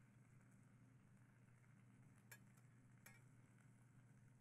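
Near silence with a steady low hum, broken by two faint clicks about a second apart, from a knife touching the serving bowl as fruit salad is tossed by hand.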